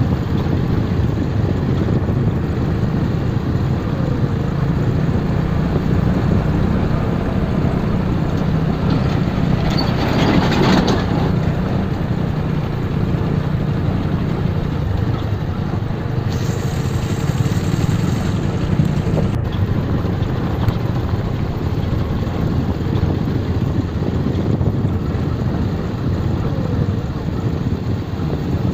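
Motorcycle engine running steadily at low road speed on a rough dirt road, heard from on board the moving bike. A brief louder rush of noise about ten seconds in.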